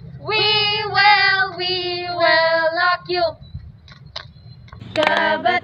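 A high female voice sings a line of an anti-drug jingle in Tagalog, with long held notes. Near the end several voices come in together to begin the chorus.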